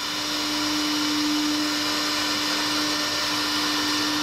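CNC router spindle motor running steadily at high speed, a constant whine with an airy hiss.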